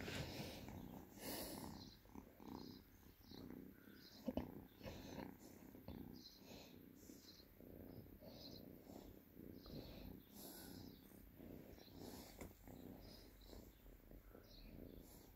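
Two-month-old kitten purring faintly while being stroked. The purr pulses in and out with each breath, and there is one brief knock about four seconds in.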